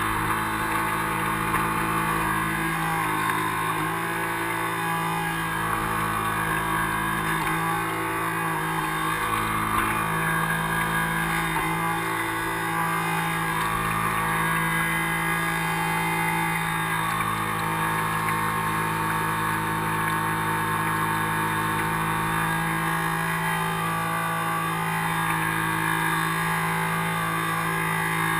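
The 380-size brushed electric motors of a radio-controlled model harbour boat running steadily, a constant hum, mixed with water splashing at the bow as the boat cruises.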